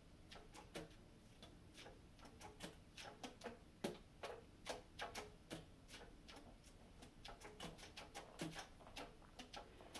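Faint, irregular clicking of tenor saxophone keys and pads closing as the keys are fingered without blowing, several clicks a second with no notes played.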